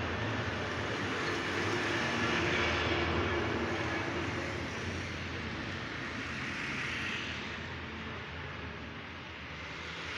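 Army truck's diesel engine running as it drives past, loud at first and fading over several seconds as it moves away.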